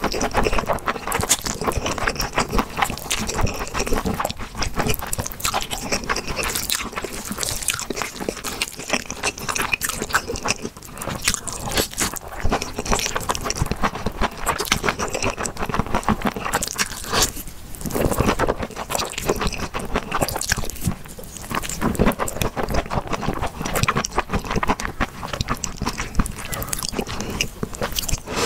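Close-miked mukbang eating: a woman slurping and chewing saucy noodles, with dense wet mouth clicks and smacks throughout.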